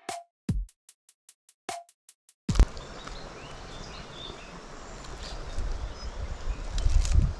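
An electronic music beat of sharp drum-machine hits, which cuts off about two and a half seconds in. Outdoor ambience follows: birds chirping over a low, uneven rumble.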